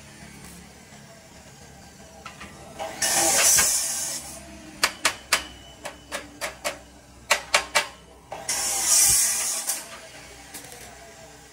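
Two hissing bursts of spray, each about a second long, one about three seconds in and another about eight and a half seconds in, with a run of about a dozen sharp clicks between them.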